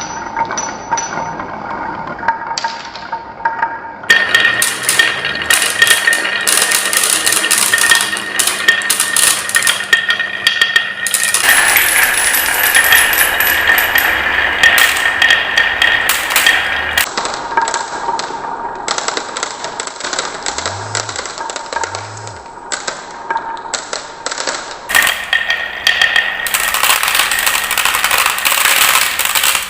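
Marbles and balls rolling and clattering down a wooden marble run: a dense stream of rapid clicks and clacks against wood, with the sound changing abruptly several times as the run switches to different track sections.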